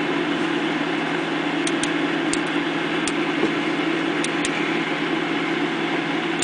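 Small two-phase can-stack stepper motor driving its lead-screw linear actuator, with a steady hum, over the steady whir of the stepper driver's cooling fan. A few faint high ticks come through.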